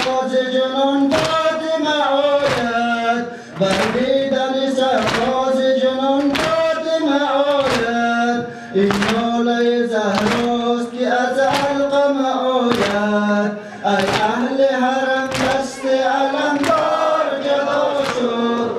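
Noha, a Shia mourning lament, chanted in long held notes, with mourners beating their chests in unison (sineh-zani) about once every 1.3 seconds to keep time.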